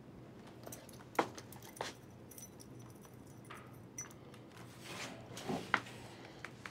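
Keys jangling and sharp metallic clicks of a lock as a wire-mesh jail cell door is unlocked and swung open. A handful of separate clicks and rattles, the loudest about a second in and again near the end.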